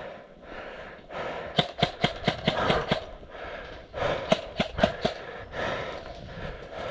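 Footsteps crunching on dry sandy ground and twigs, sharp irregular clicks in two clusters, over heavy breathing while moving on foot.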